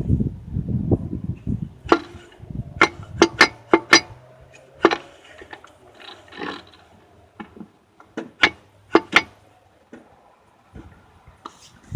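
Sharp knocks and clicks of Powerglide transmission parts being handled and set down during disassembly, coming in irregular clusters with a quieter stretch near the end.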